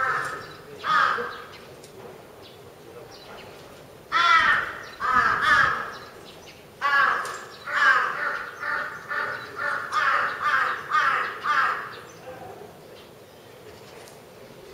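Crows cawing: two caws at the start, a short burst about four seconds in, then a fast run of about ten caws, roughly two a second, fading out near the end.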